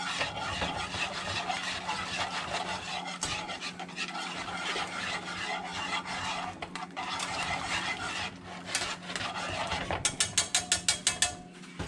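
Wire whisk scraping round a skillet, stirring butter into a mushroom pan sauce to finish it. Near the end the strokes turn into a quick run of sharp clicks, about eight a second, and a steady low hum runs underneath.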